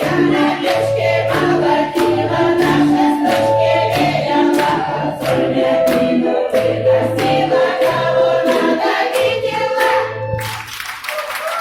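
Women's folk ensemble singing a Russian song in chorus over an instrumental accompaniment, with a steady bass line and sharp rhythmic beats about twice a second.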